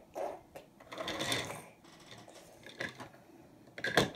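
Small plastic toy bulldozer rolled across a wooden tabletop, its wheels and parts clicking and rattling, with a quick run of louder clicks near the end.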